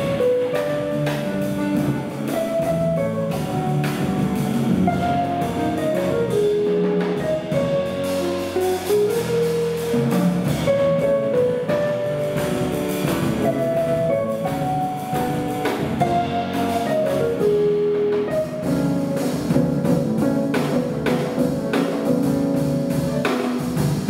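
A jazz quartet playing live, with guitar and drum kit: a melody of short single notes moves over the band's steady groove.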